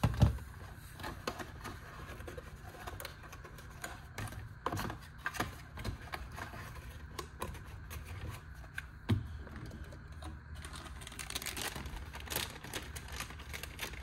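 Light clicks, taps and scrapes of a pocket knife and its cardboard and plastic packaging being handled on a workbench mat, with a few sharper knocks scattered through, over a low steady hum.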